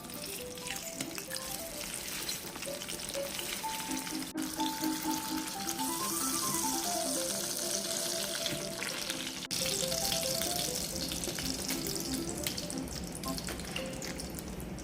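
Food sizzling as it fries in hot oil in a pan, with light background music over it.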